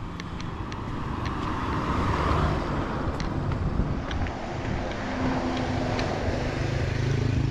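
A motor vehicle's engine running close by, growing louder over the street noise.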